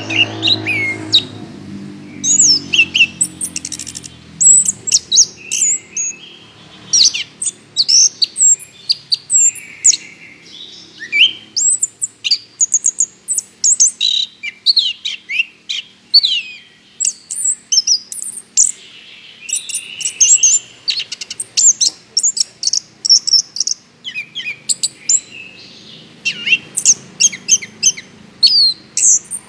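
Chestnut-capped thrush (anis kembang) in full song: a fast, unbroken run of varied high whistles and chirps that sweep up and down in pitch. A low droning sound fades out over the first few seconds.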